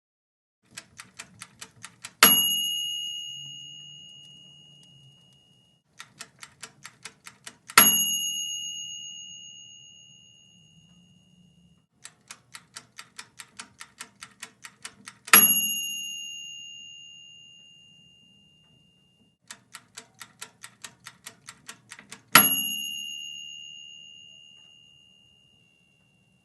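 Toaster oven timer bell, four times: each time a quick run of about ten ticks, then a single bright ding that rings down over about three seconds, marking the timer running out.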